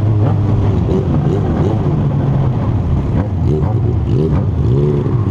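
Kawasaki Z750 motorcycle's inline-four engine revved in quick throttle blips, the pitch rising and falling several times in a row, over a steady engine drone.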